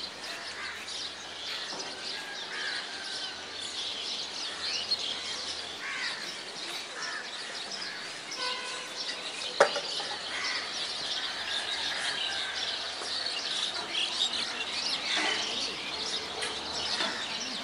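Small birds chirping and calling continuously outdoors, with one sharp click or knock about nine and a half seconds in.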